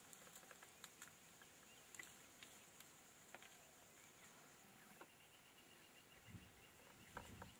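Near silence: faint outdoor natural ambience with a thin high steady tone and scattered soft clicks, joined about five seconds in by a faint rapid chirping and a few soft rustles near the end.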